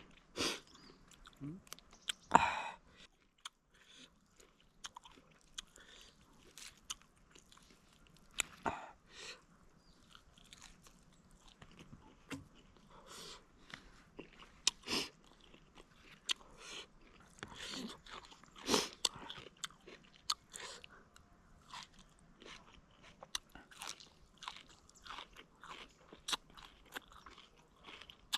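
Close-miked eating of spicy tandoori chicken: irregular bites, chewing and crunching, made up of many short sounds with a few louder bites.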